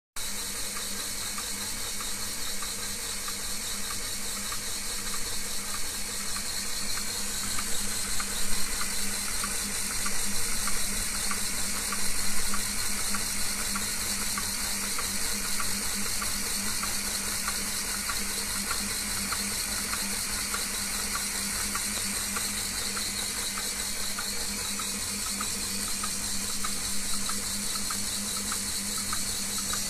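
Sealion 30cc four-cylinder overhead-cam model engine being turned over by the lathe through a belt for running in: a steady mechanical whirr with a fast, even ticking over the hum of the lathe motor.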